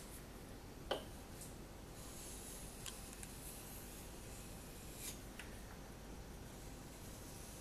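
Knife blade being stroked across a wet 1000/4000-grit combination whetstone: faint, soft scraping with a few light clicks, the sharpest about a second in.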